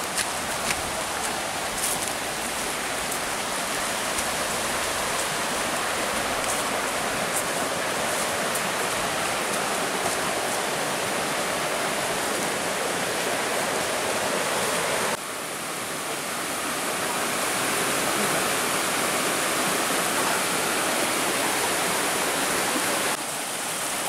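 Steady rushing of a rocky jungle stream, white water running over boulders. It drops off suddenly about fifteen seconds in, swells back up, and dips again near the end.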